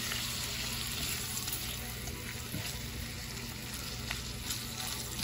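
Shrimp and butter sizzling in a hot skillet, stirred with a silicone spatula: a steady frying hiss with faint crackles.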